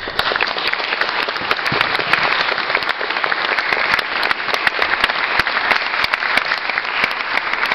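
Audience applause that breaks out all at once and keeps going steadily, a dense patter of many hands clapping.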